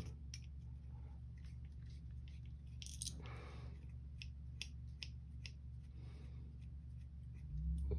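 Faint small clicks and ticks of a 2 mm hex driver backing screws out of an RC helicopter's plastic main gear, with a brief scrape about three seconds in, over a steady low hum.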